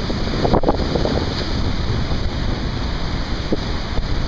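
Strong wind buffeting the microphone over the rush of breaking surf and choppy waves.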